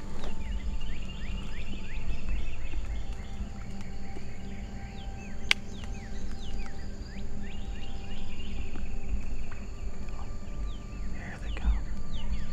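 Small songbirds chirping, many quick downward-sliding notes, over a low rumble; a single sharp click about five and a half seconds in.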